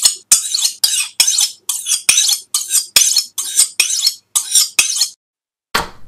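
A knife blade is drawn repeatedly along a sharpener: about two strokes a second, each a sharp metallic scrape that fades out. The strokes stop about five seconds in, and just before the end a knife starts cutting into cardboard.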